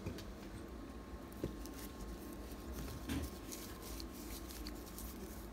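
Faint rustling and light scuffs of a paper tissue wiping water off an Apple Watch, over a low steady room hum.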